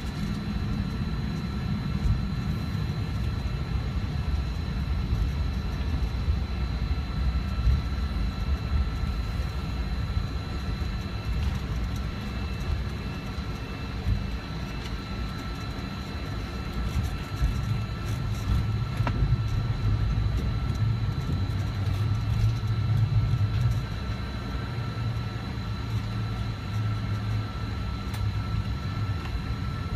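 Cabin noise inside a McDonnell Douglas MD-88 taxiing onto the runway before takeoff: a steady low rumble from the rolling airliner with a thin, steady whine from its rear-mounted Pratt & Whitney JT8D engines at taxi power. The rumble grows heavier for a few seconds past the middle.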